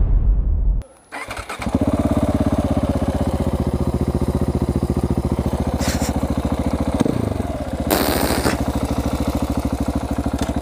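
A loud booming sound cuts off about a second in. Then a Husqvarna 701 Supermoto's single-cylinder engine starts and settles into a steady, evenly pulsing idle through an exhaust without its dB killer.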